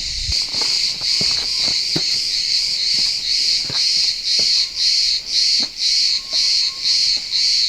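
Cicadas buzzing loudly in a high, rasping chorus that pulses evenly about twice a second, with a few faint knocks underneath.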